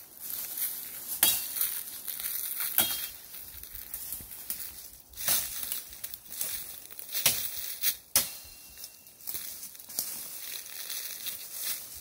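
Footsteps crunching through dry leaves and brush, with twigs snapping and branches rustling at irregular moments.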